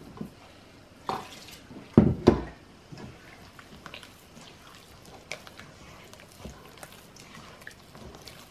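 Kitchen handling sounds: two sharp knocks close together about two seconds in, then scattered light taps and clicks.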